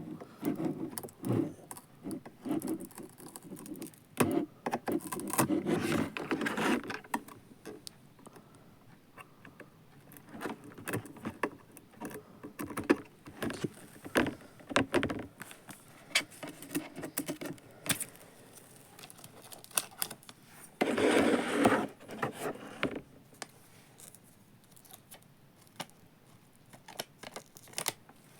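Irregular plastic clicks, rattles and scraping as a small battery-powered robot vacuum cleaner is handled and fitted together, with a longer, louder stretch of scraping about two-thirds of the way through.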